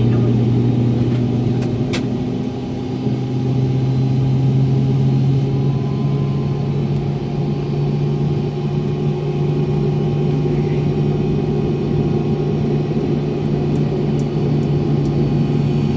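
Steady low drone of an MD-90 jet airliner heard from inside the cabin near its tail-mounted engines, with a hum that steps up a little in pitch about three seconds in. A single click about two seconds in.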